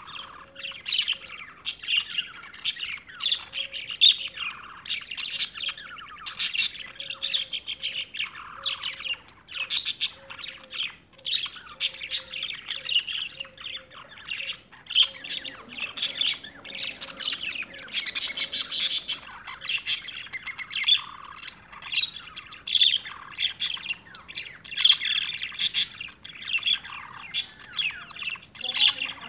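Birds chirping and twittering continuously: many short, high calls following one another rapidly throughout.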